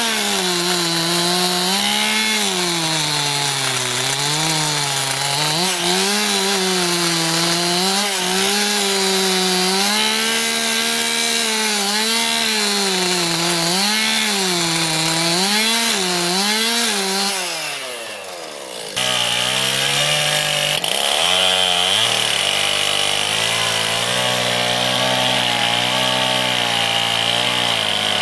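Chainsaw fitted with a debarking head stripping bark from a poplar log, the engine rising and falling in speed under load for about seventeen seconds before winding down. After a sudden change near nineteen seconds, a small engine runs steadily at a lower speed.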